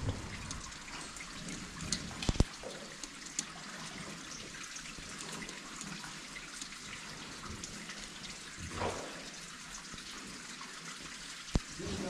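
Water trickling and dripping, a steady splashing hiss with small drips. There are a couple of sharp knocks, about two seconds in and near the end.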